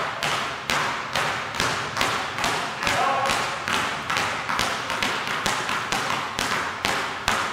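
Basketballs bouncing on a hardwood gym floor in a steady rhythm of about three bounces a second, echoing in the gym: two players each dribbling two balls at once.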